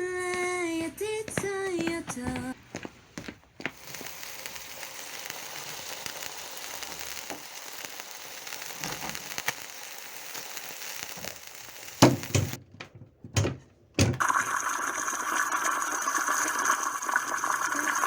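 A sung note ends in the first seconds. Then comes a steady sizzling hiss of food frying in a pan, broken by two knocks about twelve and thirteen and a half seconds in. After that a louder steady rush of water runs from a tap.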